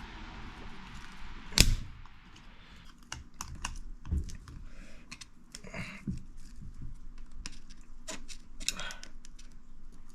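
Metal tool clicks and scrapes on a large, stubborn snap ring on the front of a hydraulic motor shaft as it is worked loose. One sharp metallic snap comes about a second and a half in, followed by a string of small clicks and taps.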